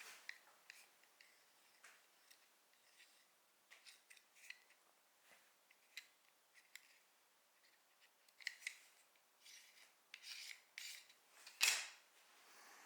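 Short scraping and rubbing strokes on the surface of a wooden end grain cutting board as excess wax is cleaned off, scattered at first and coming closer together near the end, with one louder scrape shortly before the end.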